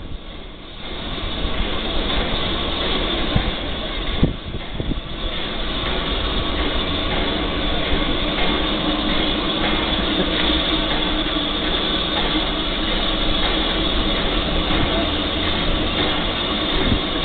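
Steam locomotive 70000 Britannia, a BR Standard Class 7 Pacific, blowing steam from its open cylinder drain cocks: a loud, steady hiss that builds over the first second or two and then holds.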